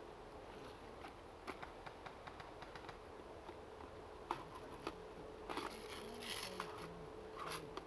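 Faint distant airsoft guns firing: scattered single pops and a few short quick strings, the strongest a little after the middle, over a quiet outdoor background.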